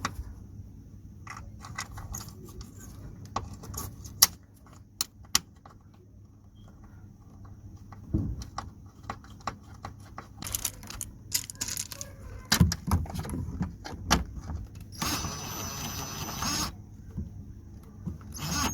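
Irregular metallic clicks, clinks and knocks of a parking brake cable and its metal retaining clip being handled and pressed into place, with a rasping scrape lasting about a second and a half past the middle.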